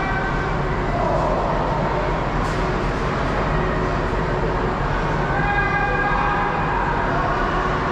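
Ice hockey rink ambience: a steady wash of arena noise, with long held tones near the start and again from about five seconds in.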